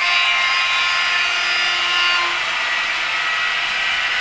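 Small electric motor of model railway equipment whining steadily, with several steady tones on top; some of the tones drop out about two seconds in.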